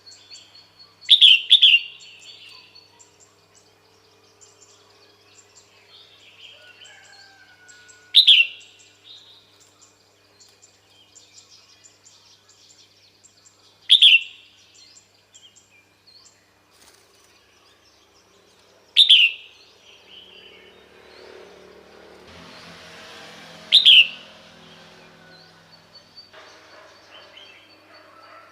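Female red-whiskered bulbul calling: a short, loud, downward-sweeping call repeated every five to six seconds, doubled the first time, with fainter chirping in between.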